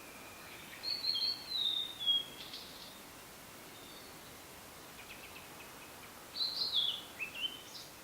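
Blue-and-white flycatcher singing: two phrases of clear whistled notes, one about a second in and one about six seconds in, each gliding down in pitch and ending in a few quick notes. A steady background hiss runs underneath.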